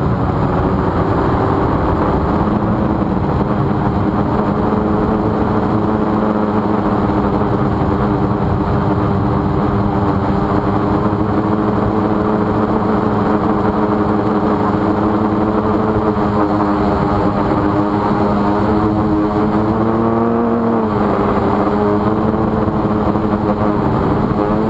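Steady electric buzz from a downed FPV quadcopter, one held pitch with overtones that shifts slightly twice.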